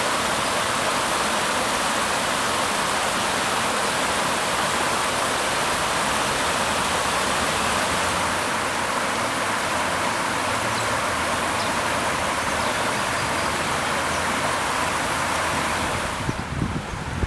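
Waterfall rushing steadily, an even wash of falling water that stops abruptly near the end.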